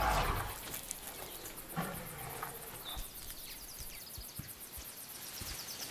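Desert elephant pulling at high tree branches with its trunk: a burst of rustling, cracking wood at the start, and a short low grunt from the elephant about two seconds in.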